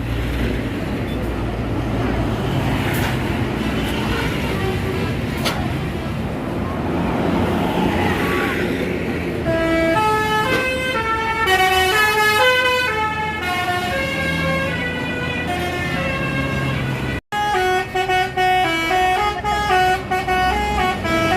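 A bus's basuri musical air horn plays a quick tune of stepped notes over the bus's running engine. For the first nine seconds or so only the engine is heard, then the horn melody begins. The horn breaks off for an instant about seventeen seconds in and picks up again.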